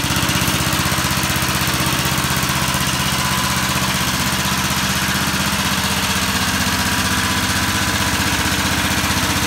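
Flathead single-cylinder lawnmower engine running steadily with an even beat.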